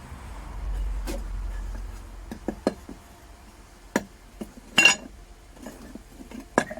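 Hard metal casting gear knocked and set down: a handful of separate clinks and knocks, one near the five-second mark ringing briefly, over a low rumble that fades out after about two seconds.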